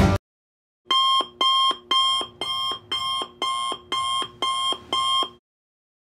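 Electronic alarm beeping: nine short, shrill beeps at about two a second, starting about a second in and stopping about half a second before the end.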